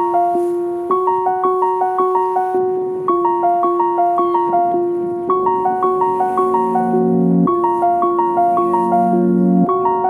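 Background piano music: a gentle repeating arpeggio, about three to four notes a second, over a recurring low note, with deeper chords added twice in the second half.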